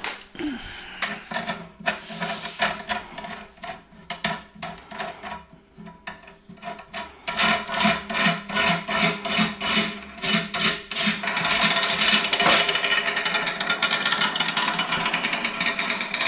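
Steel washers and nuts clinking and rattling as a hand rummages through a plastic tub of them. Then comes a run of regular rhythmic clicking, about three strokes a second, which becomes a dense, continuous sound about eleven seconds in.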